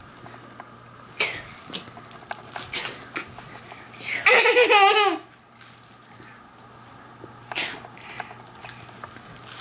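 A young child laughing loudly for about a second, about four seconds in, between a few short breathy fake sneezes.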